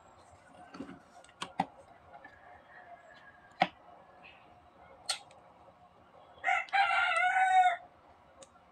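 A rooster crows once, loudly, near the end. Before it come a few sharp metallic clicks and knocks as the parts of a car starter motor are handled and fitted together.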